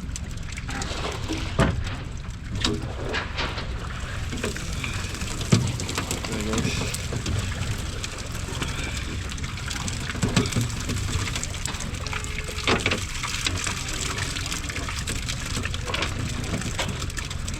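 Water splashing and dripping, with scattered sharp knocks and faint voices in the background.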